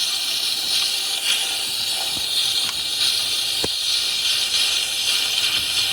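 Compressed air hissing out of a 6.0 Powerstroke's high-pressure oil system, fed in through the ICP sensor port, with a few sharp clicks as a ratchet loosens an injector standpipe. The hiss changes as that standpipe is loosened, the sign that it is the leaking one.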